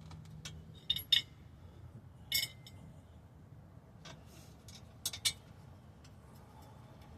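Hand tools and small metal parts clinking against each other during work on a wheel hub, about six short, sharp clinks: a pair about a second in, one near the middle, and another pair a little after five seconds.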